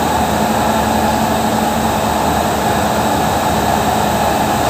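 Factory machinery running steadily: a constant whir with a steady low hum underneath.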